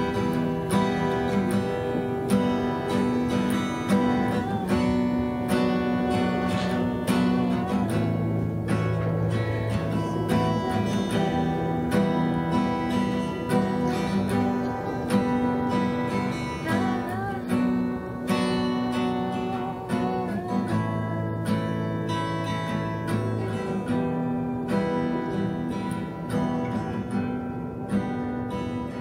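Music: an acoustic guitar playing chords.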